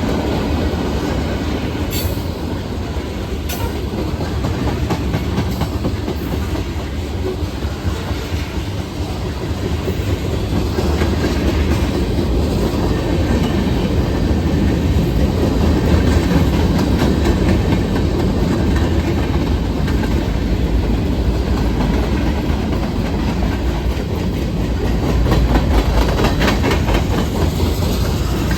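Norfolk Southern freight train rolling past, its cars rumbling steadily with the clickety-clack of wheels over rail joints and a few sharper clicks near the end.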